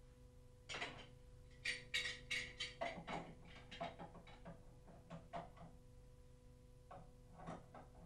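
Steel grips and an adjustable spanner clinking and knocking against the nuts of a chrome washing-machine valve on copper pipe as they are fitted on to tighten it. A quick run of light clicks starts about a second in and thins out, with a few more near the end, over a faint steady hum.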